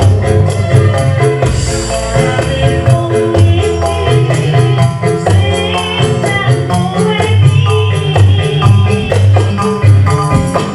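Live Javanese band music played in a fast srebegan style: a quick, steady percussion beat over bass and melody lines.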